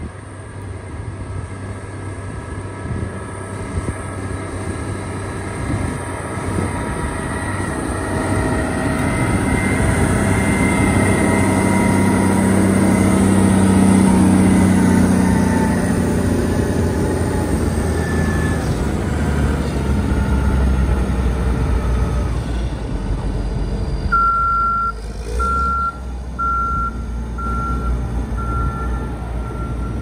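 Diesel engine of a Champion 740 motor grader working through snow. It grows louder as the grader comes near, is loudest about halfway through, then drops in pitch as it goes by. Near the end a back-up alarm starts beeping about once a second.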